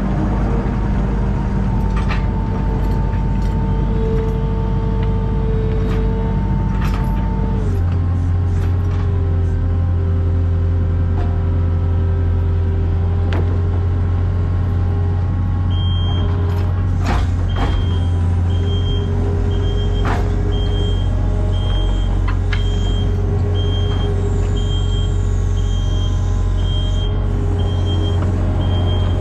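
Skid loader engine running steadily while its boom attachment lifts a roof truss; the engine note changes about eight seconds in. From about halfway, the machine's backup alarm beeps a little faster than once a second, with a few sharp knocks from the boom and chain.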